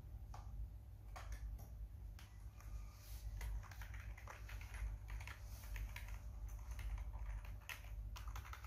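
Typing on a computer keyboard: a run of irregular, quick key clicks, over a steady low hum.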